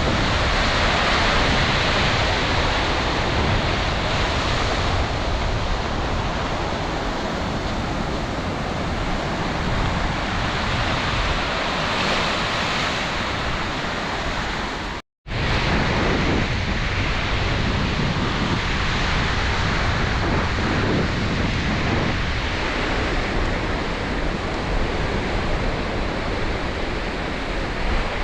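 Sea surf washing on the beach under strong wind, with wind buffeting the microphone as a steady rumbling hiss. The sound cuts out completely for a moment about halfway, then the same surf and wind carry on.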